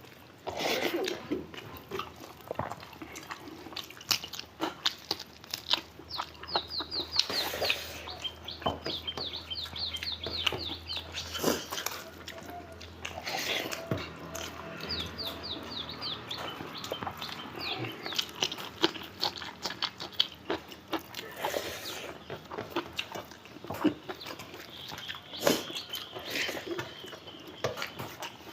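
Close-up eating sounds, with chewing, lip smacking and clicks of hands and food on plates. Twice in the middle, a bird sends out a quick run of high, falling chirps for a few seconds.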